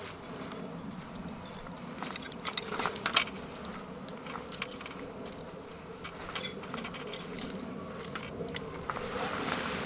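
Wood fire crackling, with scattered sharp pops and snaps and a cluster of louder ones about two to three seconds in, over a steady low buzz.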